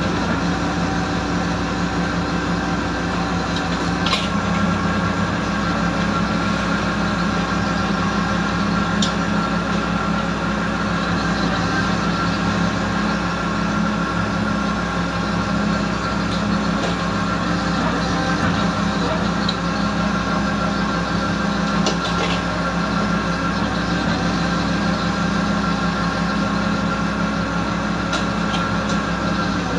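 Fishing boat's machinery (engine and deck line hauler) running with a steady drone and several unchanging tones, with a few faint clicks.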